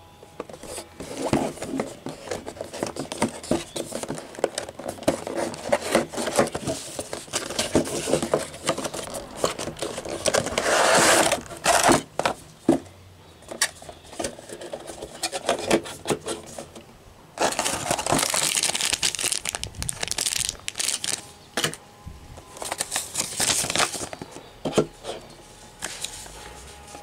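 Cardboard box and plastic packaging being opened and handled: rustling, crinkling and scraping, with many small clicks. It is loudest in stretches around the middle and again in the last third.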